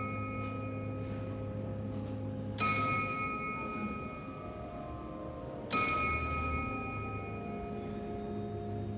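Roskilde Cathedral's bells sounding the one o'clock hour: a bell is struck twice, about three seconds apart, and each stroke rings out bright and fades slowly over a steady low hum.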